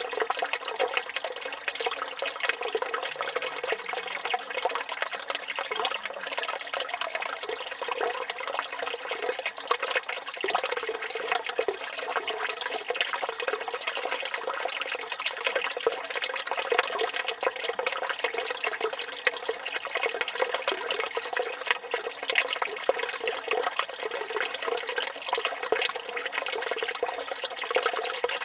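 Water running steadily from the spout of a village fountain and splashing into its basin, a dense unbroken splashing.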